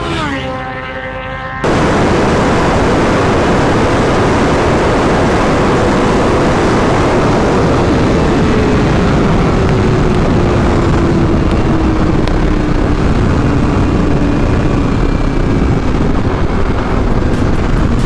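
A sport bike's engine goes by with its pitch dropping steeply. Then wind rushes loudly over a helmet-or-bike-mounted microphone at speed, over the Yamaha R6's inline-four engine note, which falls slowly as the bike eases off.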